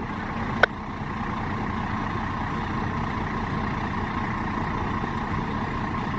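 Steady rumble of a running vehicle, even throughout, with a short radio click about half a second in.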